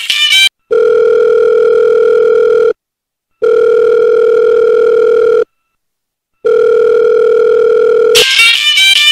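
Telephone ringback tone heard through the phone: three long steady tones of about two seconds each, with short silent gaps, as a call rings unanswered. Music comes in near the end.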